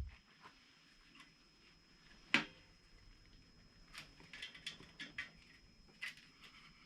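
Scattered light clicks and ticks of hand work on a motorcycle exhaust as the muffler's retaining spring is pulled off with a cable tie, with one sharper click about two and a half seconds in.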